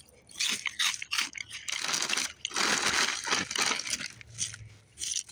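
Clear plastic bag crinkling as dry Cinnamon Toast Crunch squares are poured out onto a cloth: a dense crackle of many small pieces that eases off near the end.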